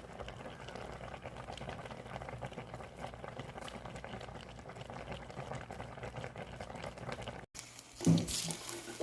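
Food cooking over an open fire: a steady bubbling hiss with small crackles. It cuts off abruptly about seven and a half seconds in, and a louder burst of sizzling starts near the end.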